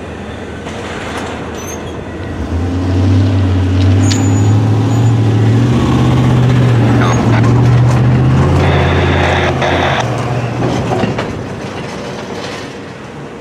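Double-stack freight train rolling away into the distance, with wheel and car noise fading. A low engine drone swells in over it about two seconds in, steps up slightly in pitch, holds for several seconds and fades near the end.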